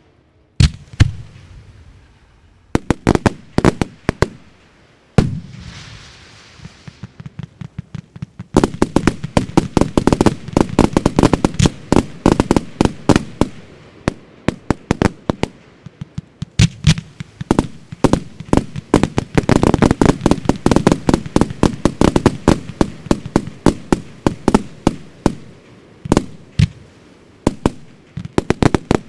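Fireworks going off: a few scattered loud bangs, one followed by a fading hiss about five seconds in, then from about eight seconds in a dense run of sharp bangs, several a second.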